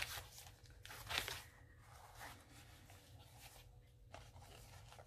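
Faint handling of a junk journal's paper pages: a sharp click at the start, a brief rustle about a second in, then a few softer rustles.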